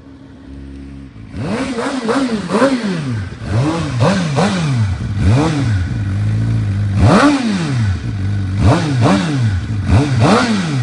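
Suzuki motorcycle engine through a Yoshimura exhaust, idling and then, about a second in, revved in a series of quick throttle blips, each rising and falling in pitch, dropping back to a steady idle between them.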